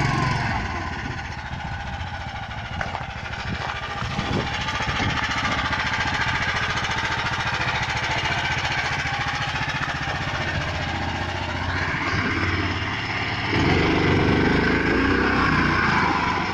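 Engine of a small big-tyred all-terrain vehicle running as it drives through snow, with a fast, even firing beat. The engine note climbs about twelve seconds in, and it gets louder shortly after.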